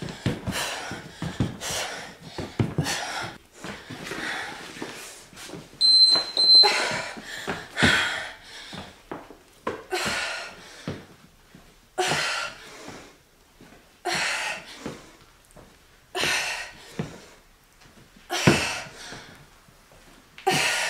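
A woman breathing hard, with forceful exhalations about every two seconds during a sandbag interval workout, and dull thuds in the first few seconds. About six seconds in, an interval timer gives a short high double beep.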